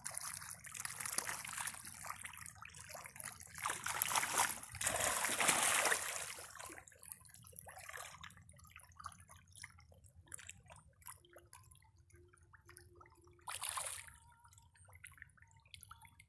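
Water splashing and sloshing as a crowded shoal of red tilapia churns at the surface. The splashing comes and goes and is loudest for a couple of seconds about four seconds in, with a shorter burst near the end.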